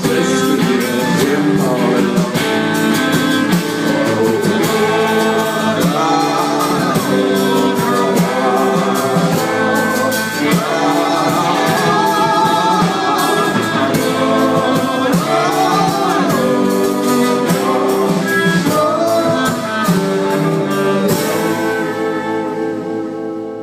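Live song with a voice singing drawn-out, sliding notes over strummed guitar. About 21 seconds in the playing stops on a final chord that rings out and fades.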